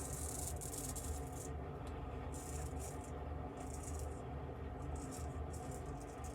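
C.V. Heljestrand straight razor scraping through lathered whiskers in a series of short strokes, about six in all, each a brief rasp.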